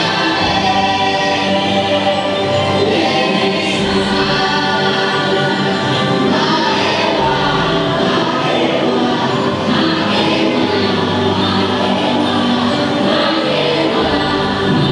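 Choral vocal music: a choir singing long held notes over a steady instrumental bed, the ride's soundtrack played through the attraction's speakers.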